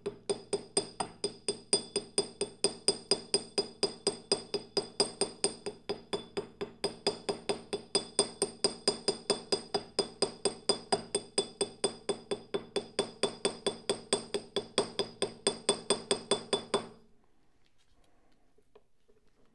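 Small ball-peen hammer tapping rapidly and evenly, about five blows a second, around the edge of a metal spring-barrel gear, each blow ringing. It is cutting the painter's tape to the gear's outline to mask it for painting. The tapping stops about seventeen seconds in.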